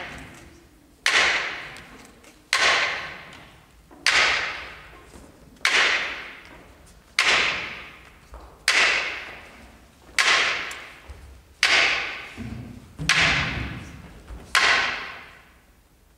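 A sharp struck hit with a long ringing decay, repeated at an even pace about every second and a half, ten times in all, with each hit fading out before the next.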